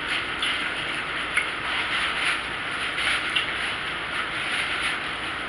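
Eating sounds: chewing with a utensil rubbing and scraping against the food, making small irregular clicks over a steady hiss.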